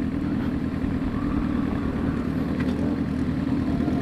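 Suzuki GSX-R750 inline-four with an open exhaust running steadily at low, idle-like revs, with no revving.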